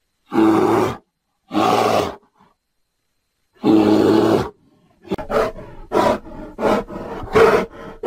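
A bear roaring three times, each call under a second long, then a quick run of about six short grunts.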